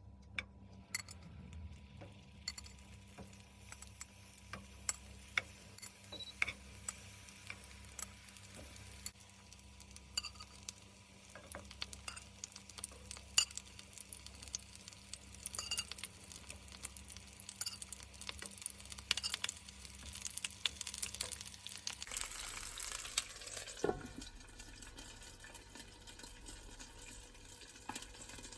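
Meat-stuffed vegetables sizzling and crackling in a frying pan, with many small sharp pops, over a low steady hum that stops about 22 seconds in.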